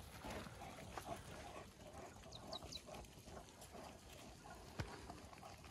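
Faint, rhythmic patter of shepherd dogs running on a gravel-and-dirt track, with three short high chirps a little before halfway.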